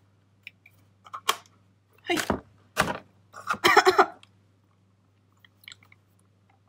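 Plastic straw being unwrapped and jabbed through the lid of a plastic milk tea cup: a run of sharp plastic crackles and pops in the first four seconds, then only faint ticks.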